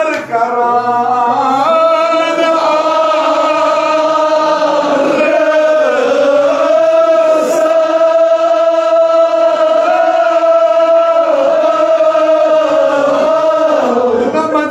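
Male voice chanting a Kashmiri marsiya (Muharram elegy), held in long, slowly wavering notes with hardly a break.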